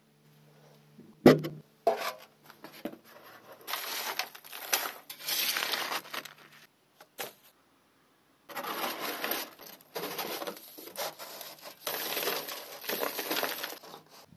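Sharp knock about a second in, then long bouts of scraping and rustling as soot and debris are brushed and scraped out of a brick stove's flue and cleanout.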